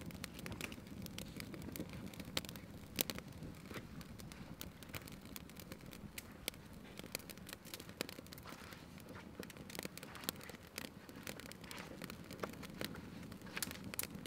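Small twig fire crackling, with frequent irregular sharp snaps and pops as the thin dry twigs burn.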